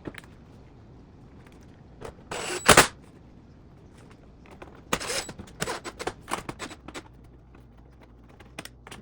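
Metal parts of an oven door being handled: a short scrape ending in a sharp snap about two and a half seconds in, then a run of quick clicks and rattles a couple of seconds later.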